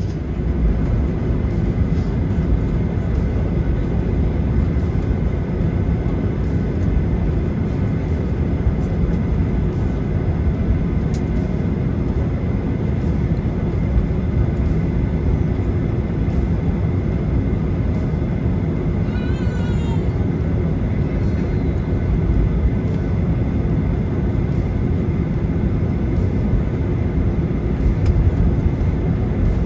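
Steady low rumble of an airliner's engines heard from inside the cabin, with a faint steady whine over it. A brief high chirp is heard about twenty seconds in.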